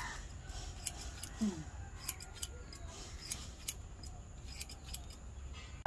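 Barber's haircutting scissors snipping through hair in a run of quick, irregular snips, a couple a second.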